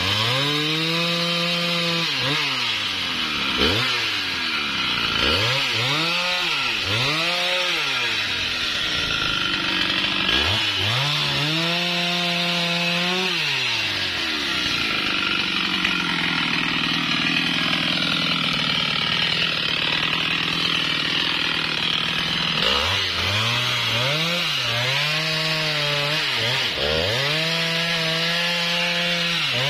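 Husqvarna 395XP two-stroke chainsaw revved repeatedly, the throttle blipped up and let fall back several times, then dropping low in the middle. Near the end it is held at high revs with small dips as the chain starts cutting into a sengon log.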